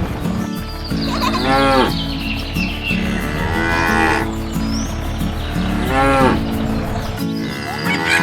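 A cow mooing again and again, each call rising and then falling in pitch, about every two seconds. Light background music plays under the calls.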